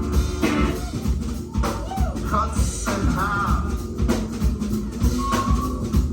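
Live band playing with no vocals: a steady drum-kit beat and bass under short, wavering pitched phrases.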